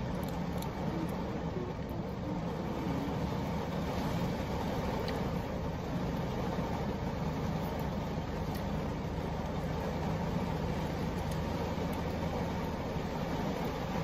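Heavy rain drumming steadily on a car's roof and windshield, heard from inside the cabin over a low, even hum.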